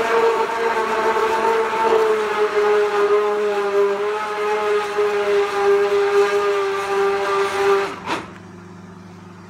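Handheld stick blender running in a jug of thick tomato and bean soup: a steady motor whine whose pitch sinks slightly as it works through the soup. It cuts off with a click near the end.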